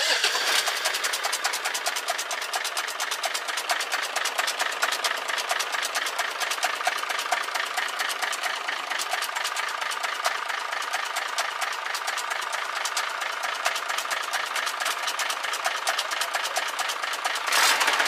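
Hino J08C inline-six diesel truck engine running with a rapid, steady tak-tak knock, which gets louder near the end. The knock is centred on the No. 1 cylinder, where the piston was found broken at its top.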